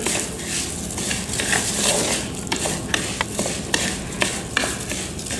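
Wooden spatula stirring raw rice as it fries in oil in a glazed clay cazuela, the grains scraping and rattling against the pot with many irregular small clicks.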